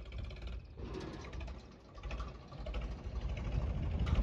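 Tractor diesel engine running, with a fast pulsing beat, getting louder toward the end.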